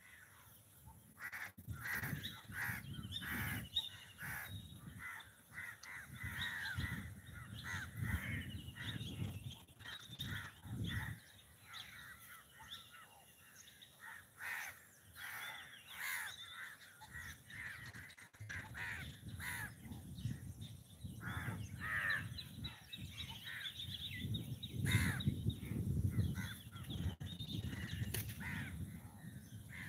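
Crows cawing over and over, with other birds chirping and a low rumbling noise that comes and goes.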